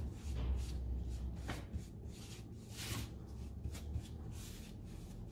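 Round wax brush rubbing neutral wax onto an MDF picture frame: soft brushing strokes, a few a second and unevenly spaced, over a low steady hum.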